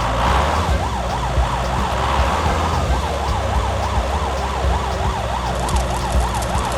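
Emergency-vehicle siren in a fast yelp, its pitch sweeping up and down about three times a second, over a steady low rumble.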